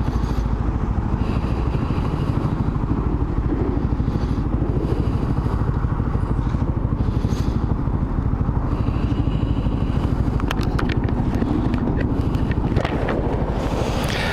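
Motorcycle engine running steadily while riding, its fast firing pulses carrying over a rush of road noise, with a few light clicks in the second half.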